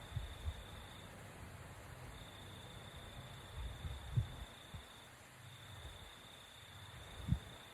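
Faint room sound: a steady high-pitched trill that breaks off twice and resumes, over a low rumble with a few soft, short low thumps.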